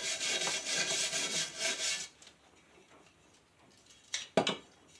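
A hand brush scrubbing caked grass and rust off a steel lawn mower blade in quick, even strokes, about four a second, stopping about two seconds in. Near the end come two sharp knocks.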